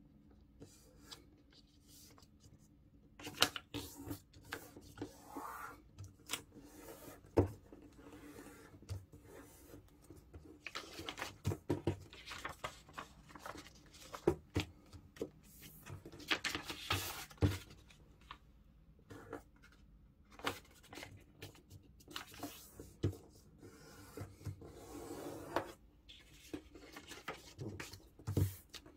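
Sheet of white copy paper being folded, creased and unfolded by hand on a tabletop: irregular rustles, crinkles and sharp crease strokes, louder at several points.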